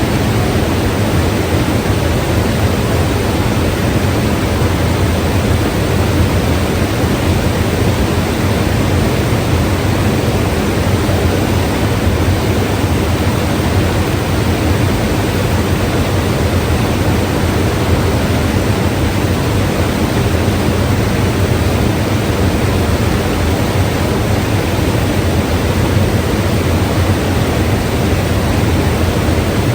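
A mountain river rushing: a steady, loud roar of flowing water.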